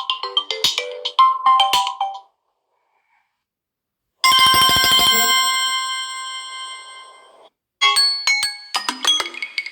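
Samsung Galaxy A20 ringtones playing one after another. A tune of bell-like notes ends about two seconds in, then after a short gap a single bright ringing tone starts with a buzz and fades away over about three seconds, and near the end a new tune of quick bell-like notes begins.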